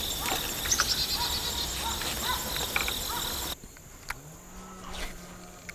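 Crickets trilling steadily in a pulsing high-pitched chorus, with a few short chirps beneath; about three and a half seconds in the chorus cuts off abruptly, leaving a much quieter background with a faint low hum and a few light clicks.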